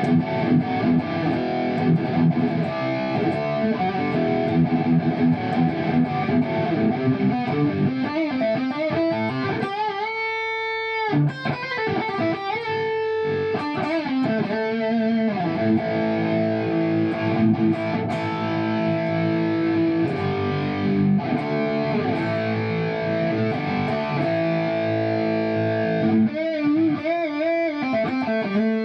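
Kiesel Vader electric guitar with Kiesel Polarity pickups in active mode, played through distortion: dense riffing, with a held note with vibrato about ten seconds in and more wavering held notes near the end.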